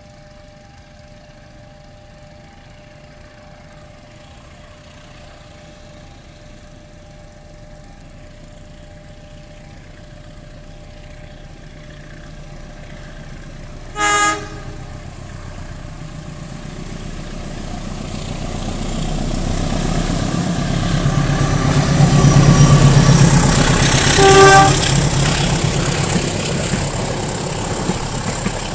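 CC201 diesel-electric locomotive hauling a passenger train, approaching and passing; its engine and wheels grow steadily louder, loudest as the locomotive goes by. It gives two short horn toots, one about halfway through and one as it passes, then the coaches follow with a steady rumble on the rails.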